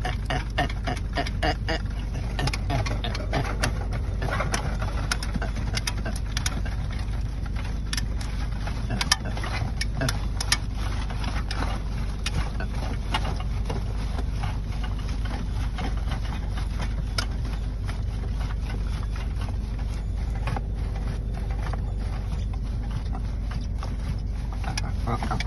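Steady low car-cabin rumble with scattered short clicks, and strained non-speech vocal sounds from a man in a grand mal (tonic-clonic) seizure near the start and again near the end.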